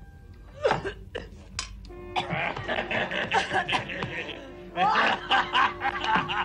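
A group of men laughing heartily in repeated bursts over background music, with a few knocks just before the laughter begins.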